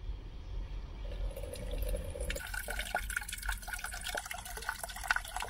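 Water pouring from a water container's spout into a stainless steel electric ramen pot, filling it with a steady splashing stream. The stream starts about a second in and gets louder and brighter a little after two seconds.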